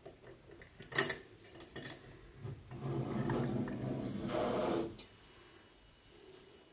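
Sticky slime being worked by hand: a couple of sharp sticky pops about a second in, then about two seconds of dense crackling, rubbing noise that cuts off suddenly.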